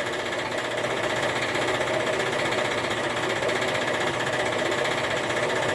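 Metal-cutting bandsaw running steadily, its blade cutting through an aluminium bar.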